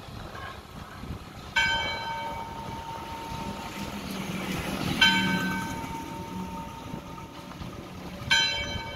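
Church bell tolling three slow strokes about three and a half seconds apart, each ringing on and fading. A motorcycle engine passes underneath around the middle.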